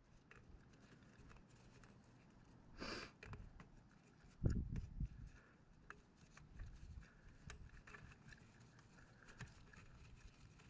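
Faint handling sounds of gloved hands easing a base gasket down over the cylinder studs of a two-stroke scooter engine: scattered small clicks, a soft rustle about three seconds in and a low thump a second or so later.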